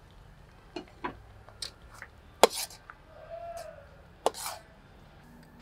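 Metal spoon clinking and scraping against a steel wok while stirring thick chilli sauce: a handful of sharp clinks, the two loudest about two and a half and four and a quarter seconds in.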